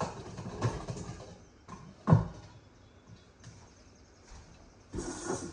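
Clatter of handling a small kitchen grinder after grinding dry rusks: a few knocks, the loudest a thud about two seconds in, and a short burst of noise near the end.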